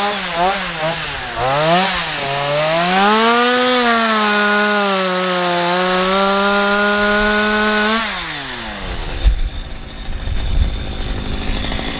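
Two-stroke chainsaw revved in short blips, then held at high revs with the pitch sagging and recovering. The pitch falls away about eight seconds in, leaving a rough noise with a few low thumps.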